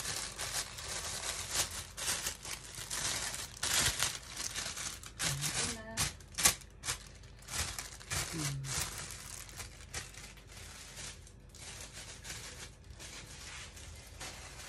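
A thin plastic bag crinkling and rustling as a bread-roll sandwich is slipped into it and wrapped. It is a quick run of crackles that thins out about ten seconds in.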